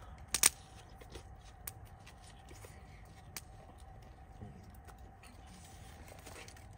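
A couple of sharp crunches as a bite is taken out of a foil-roasted whole onion, still half-raw and crisp, followed by a few scattered single sharp clicks over a low steady background.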